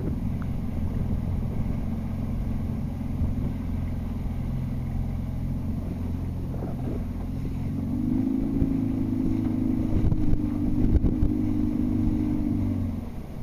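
Outboard motor of an inflatable boat running steadily. Its engine note rises and gets a little louder about eight seconds in, then drops away just before the end.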